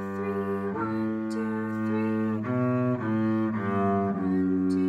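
Double bass bowed in slow, sustained notes, playing a beginner melody: a held G, then a held A about a second in, then B, A and G as three quicker notes, ending on a long held F sharp.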